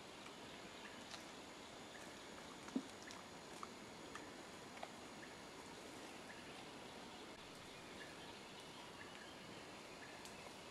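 Quiet tropical forest ambience: a steady faint hiss with faint short chirps repeating at one pitch, and a few scattered small clicks and snaps, the loudest a short knock about three seconds in.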